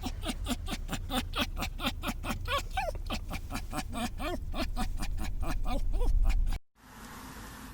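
Bolognese dog making a fast run of short pitched grunts, about five a second, that cuts off suddenly near the end.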